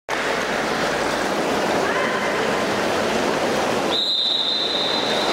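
Crowd cheering and applauding in a reverberant indoor pool hall, cut off about four seconds in by a long, steady, high-pitched whistle blast, the referee's signal for the synchronized swimming routine to begin.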